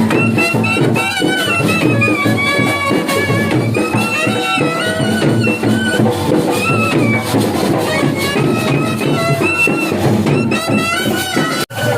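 Music: a gliding melody line over a steady drum beat, cut off by a sudden break near the end.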